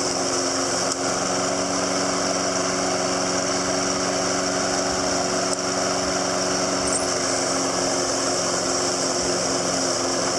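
Briggs & Stratton Intech 6.75 HP overhead-valve single-cylinder engine on a Snapper self-propelled walk-behind mower, running at a steady speed.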